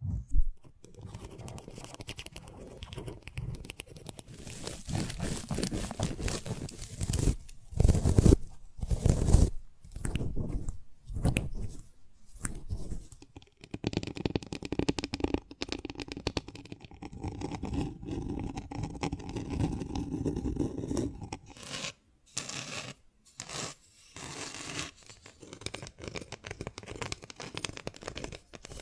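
A large bean pod being torn and peeled open by hand: crisp tearing, crunching and scraping in irregular bursts, with two louder hits about eight and nine and a half seconds in.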